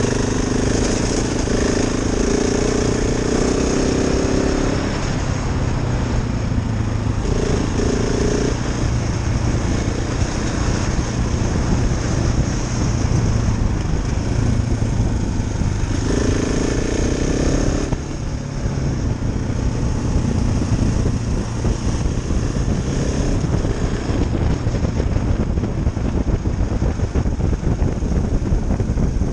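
KTM 690 Enduro R's single-cylinder engine running as the bike is ridden along under way. The engine note swells louder at the start and again about sixteen seconds in.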